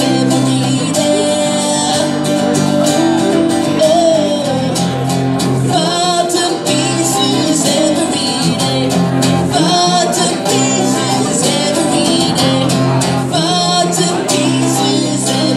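Live band playing a rock song: two acoustic guitars and an electric bass playing together at a steady level.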